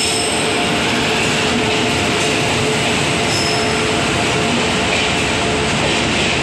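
Amritsar–Howrah Mail express train's coaches running past a station platform: a loud, steady rumble and rattle of wheels on the track, with a faint steady whine over it.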